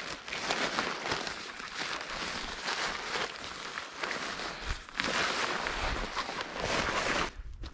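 Rustling and crunching, as of walking through dry brush, which stops abruptly near the end.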